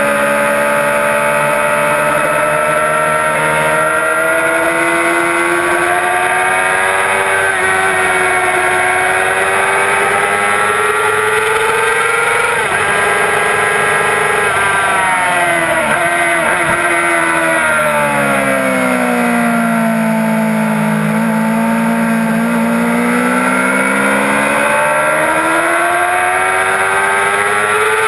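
A 2006 Yamaha R6's inline-four engine revving hard at track speed, heard on board over a steady rush of wind. Its pitch climbs slowly for the first dozen seconds, falls steeply through the middle, and climbs again near the end, rising and falling with throttle and gear changes.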